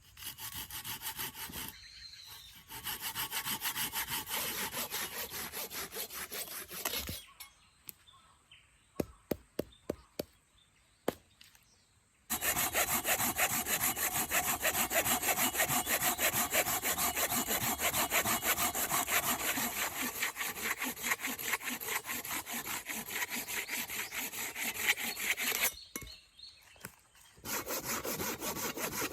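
Silky BIGBOY folding hand saw cutting through firewood with fast back-and-forth strokes. It runs in three stretches with short pauses between them, and a few sharp wooden knocks fall in the first pause.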